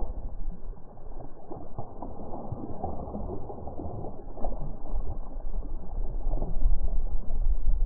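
Lake water splashing and lapping close to the microphone as a just-released small largemouth bass swims off, with wind rumbling on the microphone that grows louder near the end.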